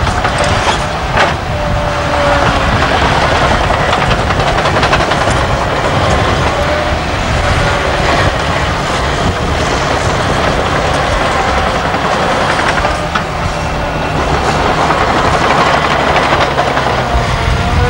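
Caterpillar 963 crawler loader's diesel engine working hard while its steel tracks clank, with short squeaks now and then.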